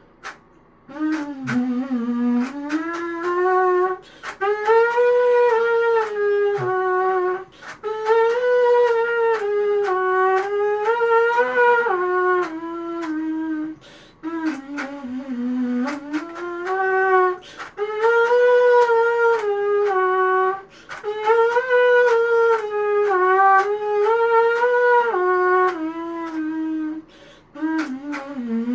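3D-printed rectangular trumpet playing a slow melody in phrases of a few seconds, with short breaks for breath between them. The tuning is a little off.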